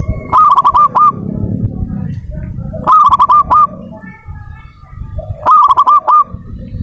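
Zebra dove (perkutut) singing its cooing song: three bursts of quick, rolling coos, each about two-thirds of a second long and some two and a half seconds apart. Softer bird calls come in between the bursts.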